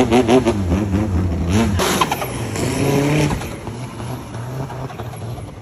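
Car engine of a long-tail racing boat running hard at high revs, its pitch wavering rapidly up and down, then rising once more before the sound drops away after about three seconds.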